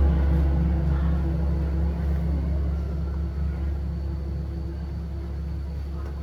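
A motor running with a steady low hum, slowly growing quieter.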